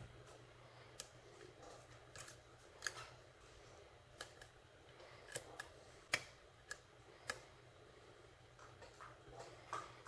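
Faint, irregular metallic clicks and ticks of a steel hook pick working the pin stack of a lock cylinder, about a dozen scattered through, with pins clicking under the pick. A faint steady hum lies underneath.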